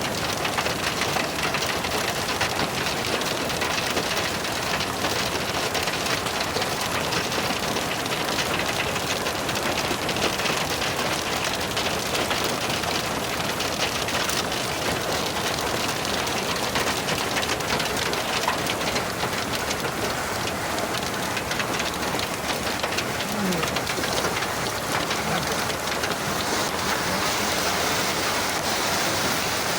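Steady rain pattering on surfaces: a dense, even hiss of countless small drop impacts that keeps up without a break.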